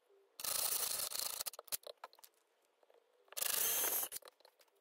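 Cordless drill boring two short pilot holes into a hardwood cutting board: two brief bursts of the motor whining as the bit cuts, one about a second in and one near the end, with a few small clicks between.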